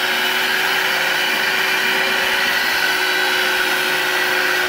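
Electric angle grinder running at full speed with a steady whine, its disc cutting into a thin wooden branch.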